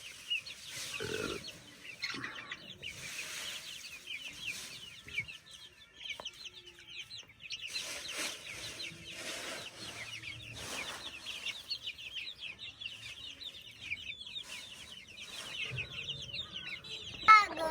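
A flock of chickens calling: many short, high calls overlapping continuously, with a louder voice cutting in at the very end.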